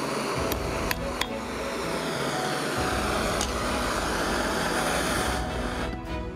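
Butane blowtorch flame hissing steadily, with a few sharp metal taps of a hammer on the steel blank and anvil in the first second and a half and one more a few seconds in. The hiss cuts off about six seconds in, as the torch is lifted away.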